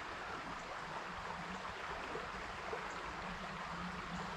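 Water of a small stream flowing steadily.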